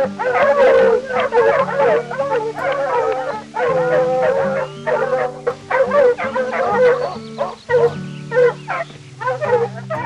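Red fox calling: a rapid run of short, wavering, high-pitched cries, breaking off briefly twice, over soft piano music.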